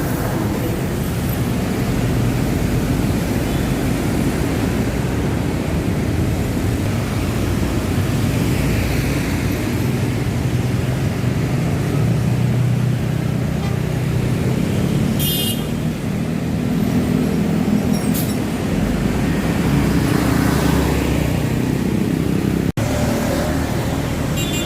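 City street traffic with bus and car engines running and passing, their hum rising and falling. A brief high-pitched squeal cuts through about halfway, and the sound drops out for an instant near the end.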